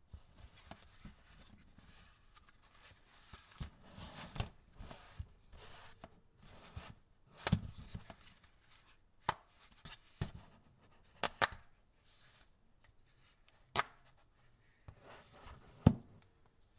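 Gloved hands handling a Razer Barracuda X wireless headset on a table: soft rubbing broken by a series of sharp plastic clicks and taps as the earcups and headband are moved. The loudest knock comes near the end, as the headset is laid flat on the table.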